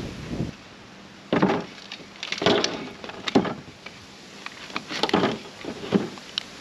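Boiled marron, corn cobs and potatoes tipped out of a perforated stainless-steel strainer basket onto a table, about five separate thuds and clatters.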